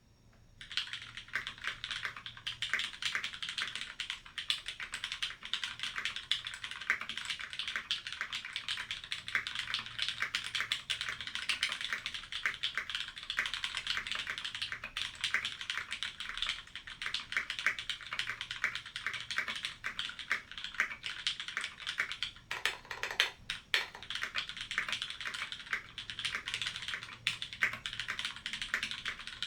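Fast, continuous typing on a Life Zone LZ-CE 60% mechanical keyboard: lubed and filmed Cherry MX Vintage Brown tactile switches in an aluminium plate, tray-mounted, under Filco OEM keycaps. It starts about half a second in, with a few deeper-sounding strokes a little past the middle.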